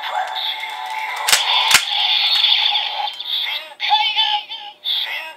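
Kamen Rider Ghost Driver toy transformation belt: two sharp clicks as its lever is worked about a second and a half in, then the belt's electronic transformation music with a synthesized voice calling "Shinkaigan!".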